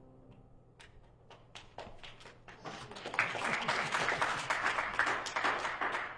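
Congregation applauding after a piano piece: the last grand piano chord fades at the start, a few scattered claps come in, building into full applause about three seconds in, which dies away near the end.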